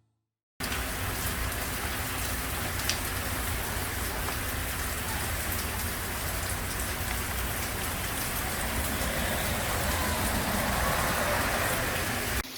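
Steady rain falling on surfaces: a dense, even hiss that starts abruptly about half a second in.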